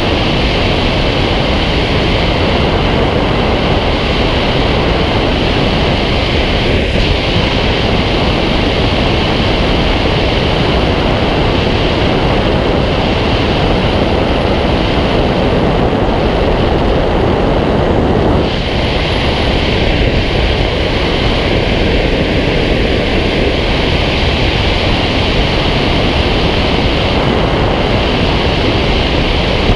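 Loud, steady rush of airflow over a camera mounted on the wing of a glider in flight.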